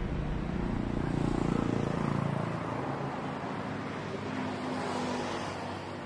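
Road traffic going by, engines of passing vehicles rising and fading twice over a steady road noise.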